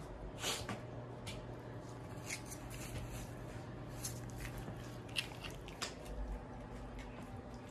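Shepherd dog gnawing a chew bone: irregular crunching and scraping clicks of teeth on the bone, with sharper cracks about half a second in and about five seconds in.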